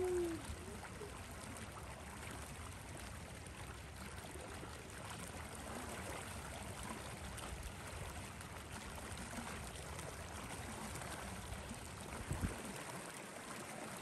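Steady rushing noise with a low rumble, and a few short knocks about twelve seconds in.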